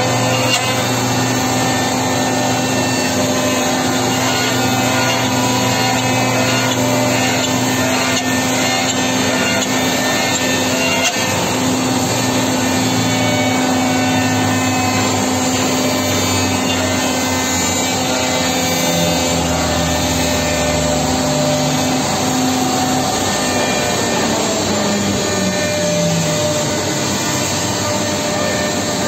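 A 4-axis multi-spindle CNC wood machining centre running, its router spindles and saw blades cutting wooden parts with a steady, loud machine and cutting noise. About three-quarters of the way through, a hum falls in pitch.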